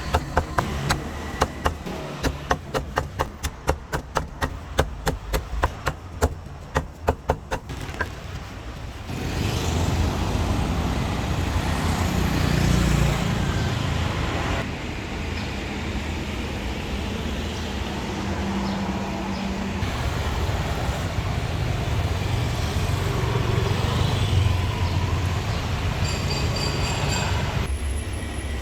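A cleaver chopping on a board: sharp, rapid knocks, about three a second, which stop about eight seconds in. Steady street traffic noise with a low engine rumble follows.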